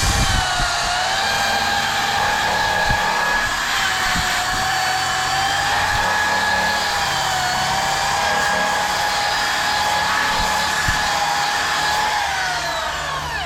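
Power drill spinning a wire brush against seam sealer and paint in the steel frame rail: a steady motor whine over the scratch of the bristles, its pitch dipping and wavering as pressure is put on. Near the end it is released and spins down with a falling pitch.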